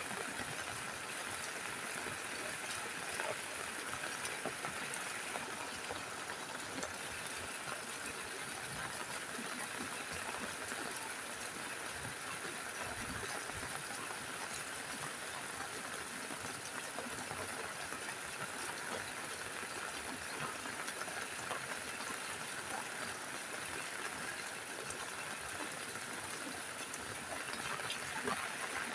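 Steady rain falling on a roof: a constant hiss flecked with faint ticks of individual drops.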